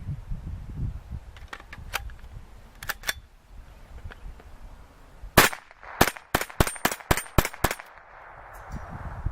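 AR-15 with a CMMG .22 Long Rifle conversion kit fired in a quick string of about eight semi-automatic shots, roughly three a second, starting about halfway through; the first shot is the loudest. The small .22 LR report is light enough that the rifle's buffer tube is heard about as much as the round going off.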